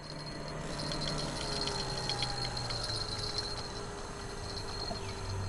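Spinning reel being cranked while a small fish is fought on the rod: irregular light ticking over a steady low hum and a high insect drone.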